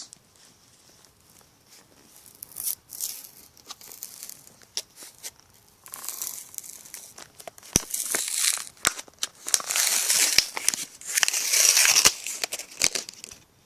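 Packaging of a new USB cable being torn open by hand: irregular crinkling, tearing and small clicks. It starts sparse and quiet and grows busier and louder about halfway through.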